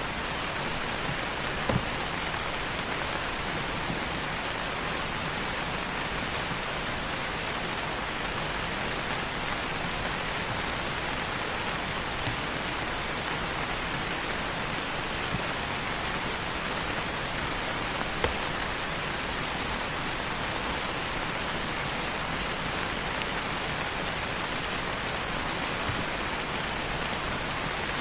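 Steady rain falling on leaves in a rainforest, a dense even hiss, with a few louder single drops standing out.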